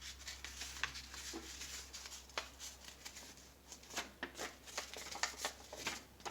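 A triangle of paper being handled and folded in half: faint, light rustles and scattered small clicks and taps at irregular intervals.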